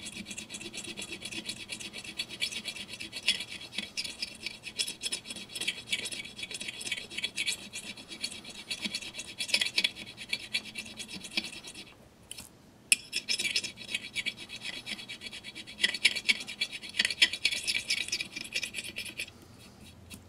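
A small needle file rasps back and forth over cured A+B epoxy putty fill on a glazed ceramic pitcher spout, making quick scratchy strokes. The filing pauses briefly a little past the middle and stops shortly before the end.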